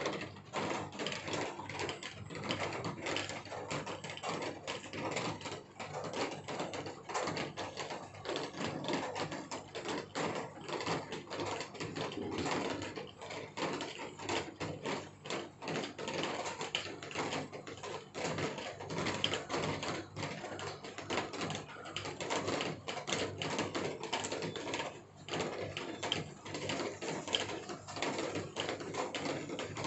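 Rain falling, its drops striking nearby hard surfaces in a dense, irregular stream of ticks that keeps up throughout.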